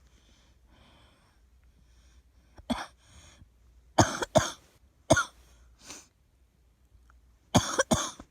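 A girl coughing: after a few faint breaths, short dry coughs come singly and in pairs, ending in a quick run of three.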